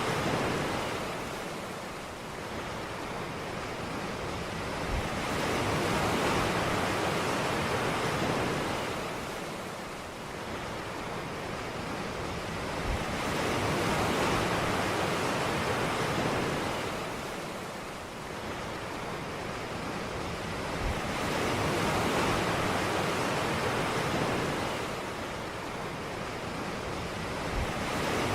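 Ocean waves breaking on a beach: a steady wash of surf that swells and ebbs about every eight seconds, four swells in all.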